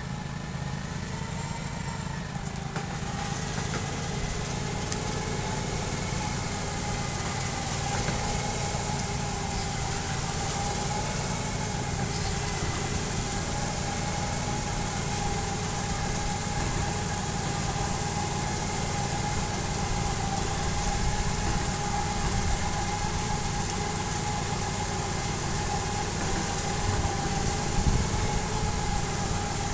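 Small tracked boom sprayer running steadily as it crawls along the rows, its engine rumbling under a thin steady whine. A hiss comes in a few seconds in as the boom nozzles start spraying.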